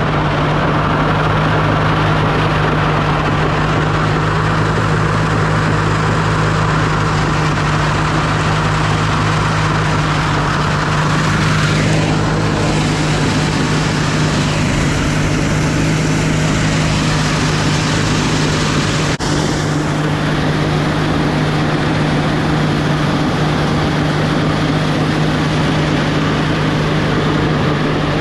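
Heavy farm machinery running steadily at a constant speed: a loud, unchanging engine hum with a whirring layer above it that eases off about twelve seconds in.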